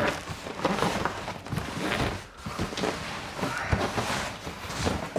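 Cardboard box and its packing being handled and opened: irregular rustling with light knocks and scrapes.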